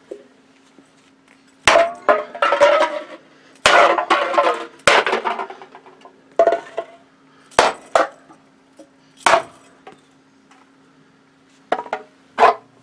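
A flexible rubber baton whacking aluminium soda cans again and again: about ten sharp hits in uneven clusters, with the tinny clink and crinkle of the cans being crushed.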